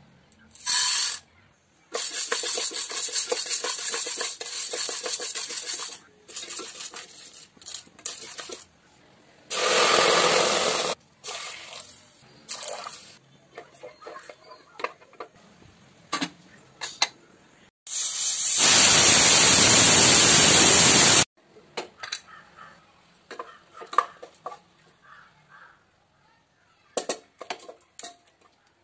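Dry chana dal (split Bengal gram) poured into an aluminium cooker pot with a long grainy rattle, then water running into the pot in gushes, loudest for about three seconds past the middle. After that the grains are swished and rubbed by hand in the water, with scattered light knocks and splashes.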